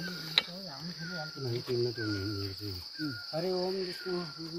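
Insects drone steadily at a high pitch, with a short chirp repeating about every two-thirds of a second. Over this a man's voice holds long, drawn-out tones, and one sharp click comes about half a second in.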